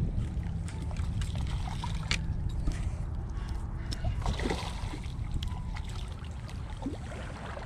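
Wind rumbling on the microphone, with small splashes and sloshing of shallow water as a small barracuda, hooked on a red lure, is drawn through the shallows.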